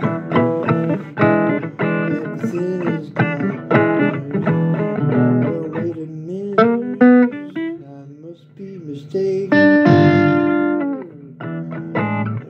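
Blues guitar played solo: quick picked notes for about six seconds, then a slower run of notes bending in pitch, and a ringing chord held about ten seconds in before the picking resumes.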